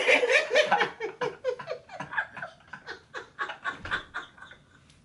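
A woman and a man laughing hard together, in quick bursts that thin out and trail off near the end.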